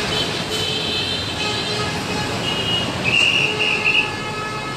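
Steady road traffic noise at a busy intersection. About three seconds in, a shrill high tone sounds for just under a second.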